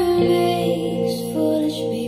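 Recorded music played over YG Acoustics Vantage 3 loudspeakers and picked up by room microphones. It is a slow passage with a held bass note that changes pitch shortly after the start, under sustained higher tones.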